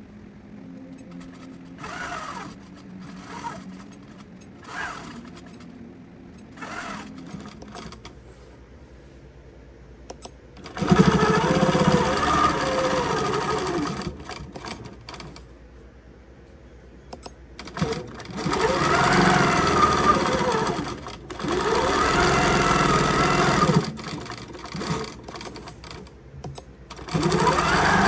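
Longarm quilting machine stitching in bursts, its motor pitch rising and falling as the needle speeds up and slows down, with quieter pauses between runs. The footage is sped up, so the stitching sounds fast and high.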